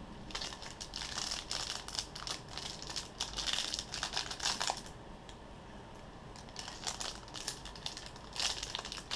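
Clear plastic wrapper on a pack of card-game tokens crinkling as it is handled and pulled open, in spurts with a quieter stretch just past the middle.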